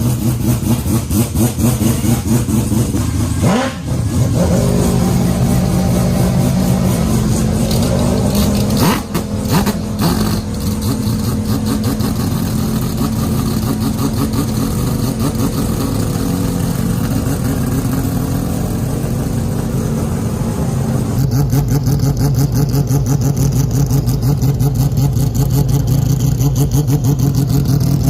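Mazda 767B's four-rotor rotary racing engine running loud just after start-up, with short throttle blips a few seconds in and again around ten seconds, then settling into a steady, evenly pulsing idle for the last several seconds.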